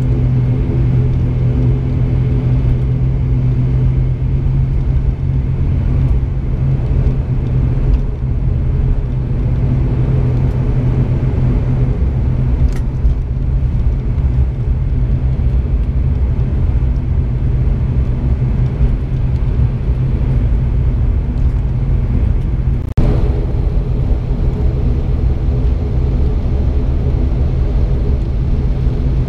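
ATR 72-600's Pratt & Whitney Canada PW127M turboprop running at taxi power, heard inside the cabin right beside the propeller: a steady drone with a strong low hum and several even tones above it. A brief click about three-quarters of the way through.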